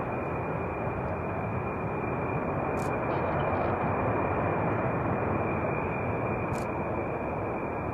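Fighter jet engine noise: a steady, even rumble of jet exhaust that swells slightly toward the middle and eases off a little near the end, with no distinct tones.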